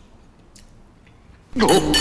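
A man eating quietly, with a couple of faint spoon clicks, then about one and a half seconds in a sudden loud cry from him, falling in pitch: a disgusted reaction to the taste of coffee-flavoured instant curry noodles.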